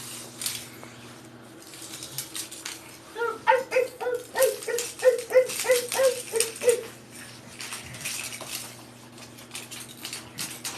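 A child's repetitive vocal stereotypy: a quick run of about ten short, pitched "ah"-like sounds, about three a second, starting a few seconds in and stopping near the middle, with light knocks and clatter around it.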